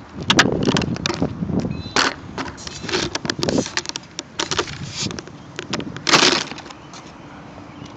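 Handling noise picked up by a phone strapped to a HobbyZone Super Cub model plane: irregular clicks, knocks and rattles as the plane is held and lowered to the ground, with a louder clatter about six seconds in. A faint steady hum comes in near the end.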